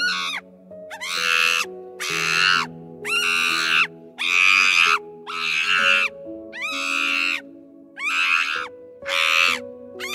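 Harsh animal calls, each about half a second long with a rising start, repeating about once a second over soft background music.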